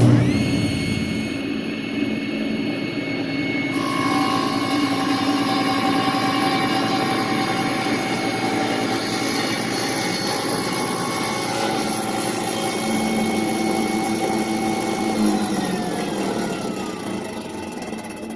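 A power saw's motor comes up to speed and runs steadily with a whine, then is switched off about fifteen seconds in and winds down, its pitch falling as it coasts to a stop.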